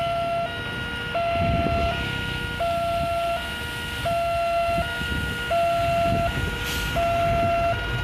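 Railway level crossing's electronic warning alarm sounding a two-tone hi-lo signal, switching between a higher and a lower note about every 0.7 s, to warn that a train is coming and the barriers are closing. Road traffic rumbles past underneath.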